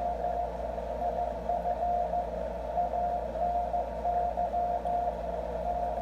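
Morse code from W1AW's code transmission received in CW mode on an ICOM IC-705 and played through its internal speaker. A single tone of about 700 Hz is keyed on and off in dots and dashes over a narrow band of receiver hiss.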